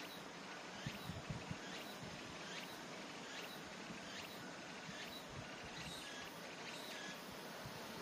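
A small animal's short chirping call, repeated about once a second over a steady background hiss, with a few low handling thumps about a second in.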